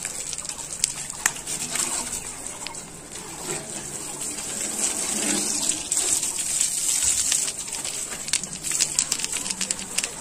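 Water from a hose spraying and splattering against a tractor's metal body and tyres: a steady hissing rush broken by many small splashes.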